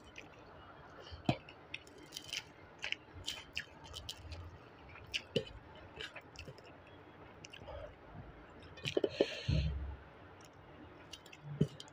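Eating by hand: chewing and mouth smacks with scattered sharp clicks as fingers mix rice and chutney on a steel plate. A louder burst of eating noise comes about nine seconds in.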